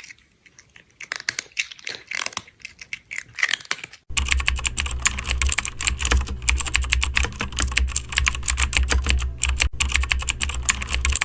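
Computer keyboard typing: scattered key clicks at first, then about four seconds in a sudden switch to fast, dense, louder typing over a steady low hum.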